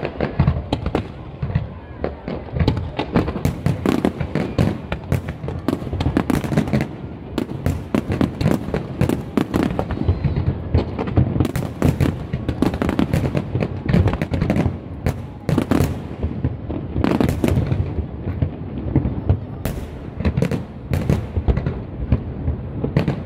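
Aerial fireworks display: a continuous barrage of overlapping bangs and deep booms, many per second, with no let-up.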